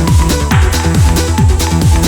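Electronic dance music with a steady kick drum, about four beats a second.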